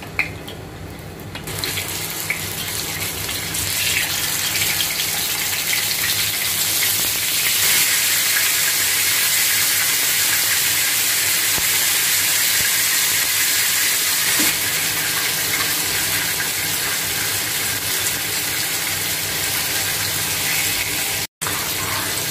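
Marinated chicken pieces sizzling in hot oil in a nonstick frying pan: the hiss starts about a second and a half in as the pieces go into the oil, and it grows louder and holds steady as the pan fills.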